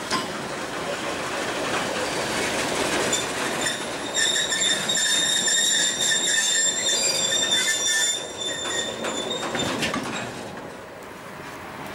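Freight train of open goods wagons rolling past, its wheels rumbling and clacking on the rails. A steady high-pitched wheel squeal sets in about four seconds in and stops near ten seconds, after which the noise dies down.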